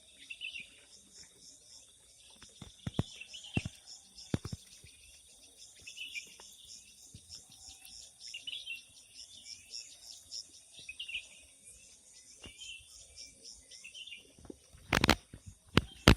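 Small songbirds chirping in short, scattered calls over a steady, fast-pulsing chorus of crickets. A few sharp clicks come about three to four seconds in, and a brief loud burst of noise near the end.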